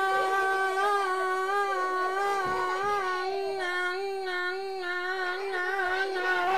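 A ventriloquist's high puppet voice holding one long sung note, with slight wavers in pitch.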